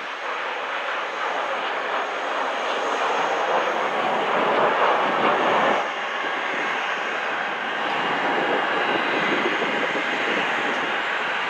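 Jet noise from a Boeing 737 airliner on landing: a steady rushing roar that swells to its loudest a few seconds in, drops off suddenly about six seconds in, and then carries on at a lower level.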